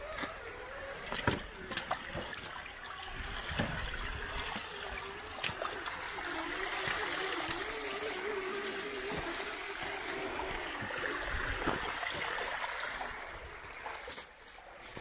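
Water splashing and running as a radio-controlled crawler truck wades through water. A few sharp knocks are heard early on, and the truck's electric motor whines with a wavering pitch through the middle stretch.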